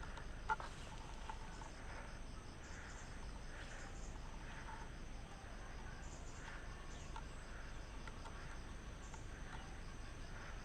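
Insects chirping steadily, a high pulsing trill that runs on without a break. A single sharp click sounds about half a second in.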